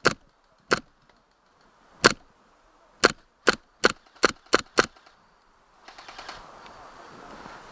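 Gas blowback airsoft gun firing single shots: eight sharp cracks, two spaced well apart and then six in quicker succession. A steady rustling noise follows near the end.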